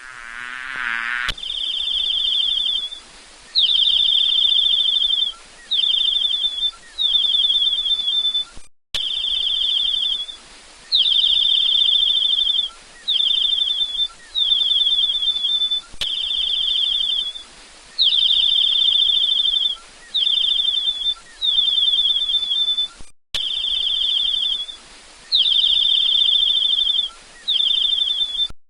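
Insect chirping in repeated high, pulsed trills, each about a second long, with short gaps between them.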